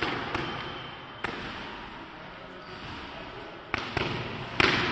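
Punches smacking into padded focus mitts, each a sharp pop that rings on in the echo of a large hall. There is a quick pair at the start and a single strike about a second in, then a three-punch combination near the end, the last strike the loudest.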